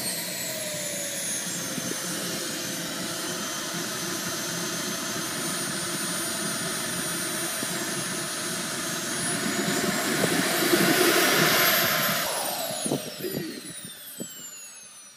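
Model jet's P160SE miniature gas turbine running at idle on the ground with a steady high whine and rush. It rises briefly about ten seconds in, then is shut down and spools down, its whine falling in pitch and fading near the end.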